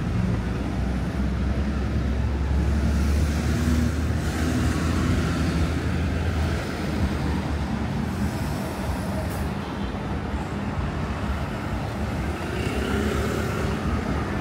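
Road traffic passing close by, with a deep engine rumble from a heavy vehicle for the first several seconds before it eases into steady traffic noise.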